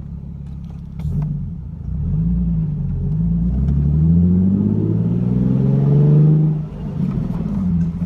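Nissan 370Z's 3.7-litre V6 through a Tomei Expreme catback exhaust (stock cats retained), heard from inside the cabin while accelerating: the engine note climbs for several seconds, drops sharply at a gear change about two-thirds through, then climbs again.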